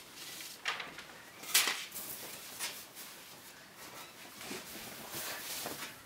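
Soft fabric rustling in several swishes as a hooded sweatshirt is pulled on over the head.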